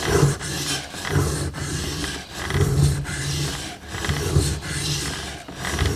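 Carbon-steel Mora bushcraft knife blade scrubbed back and forth under heavy pressure on a coarse Shapton ceramic water stone, a wet grinding rasp with each stroke, about one stroke a second. This is the coarse stage that flattens the bevel and raises a burr along the edge.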